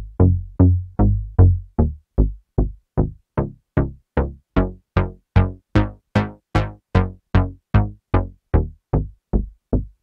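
Waldorf Kyra virtual-analog synthesizer playing a repeating plucked note about two and a half times a second. The tone brightens towards the middle and darkens again as a panel knob is turned.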